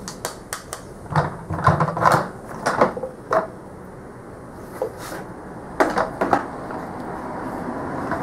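Hard plastic clicks and knocks from a wet/dry shop vacuum being opened by hand: the hose pulled from its inlet, the lid unclipped and lifted off, and the drum tipped. The knocks come in a cluster over the first three seconds and a few more around five to six seconds in.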